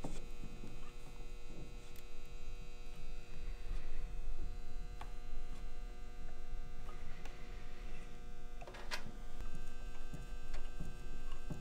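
Steady electrical mains hum, with a few light clicks and scrapes as small metal screw hooks are twisted by hand into cedar wood. One sharper click comes about nine seconds in.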